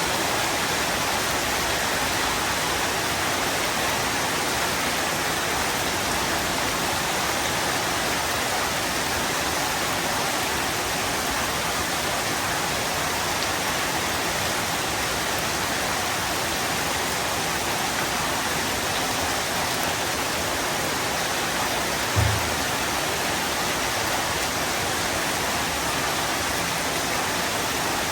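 Heavy rain pouring down steadily as an even hiss, with a single brief low thump about three-quarters of the way through.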